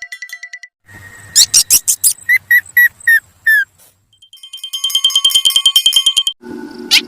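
Heavily processed, electronic-sounding effect audio: a pulsing beep, then a run of quick squeaky chirps that drop in pitch, then a long, rapidly pulsing high tone like an alarm, and a low buzz with more chirps near the end.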